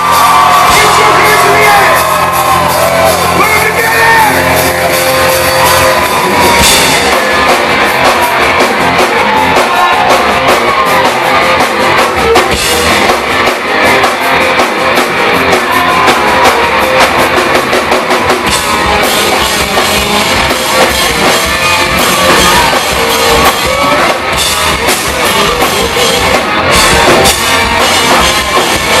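Live hard rock band playing at full volume, with drums, electric guitars and singing voices. A sustained low droning chord gives way to the full band with drums about six seconds in.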